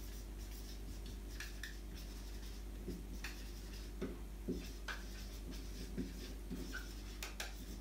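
Dry-erase marker writing on a whiteboard: a string of short, faint squeaky strokes as letters are drawn, over a steady low hum.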